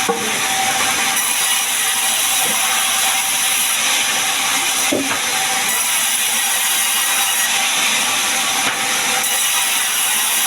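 Sawmill saw cutting through a gmelina log to make boards: a loud, steady rushing noise of the blade in the wood, with a faint steady tone underneath.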